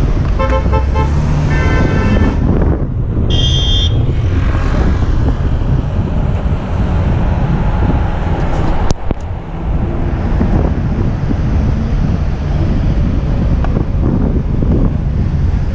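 Wind buffeting a bicycle-mounted camera's microphone while riding in city traffic, with the rumble of cars and a bus alongside. In the first two seconds there are short pitched tones with gaps between them, and a brief high ringing tone about three seconds in. There is a single sharp click near the middle.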